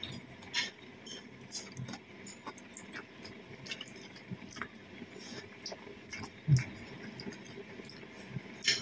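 Close-up eating sounds of a person eating rice and steamed vegetables by hand: soft chewing with scattered small mouth clicks, and one louder thump about six and a half seconds in.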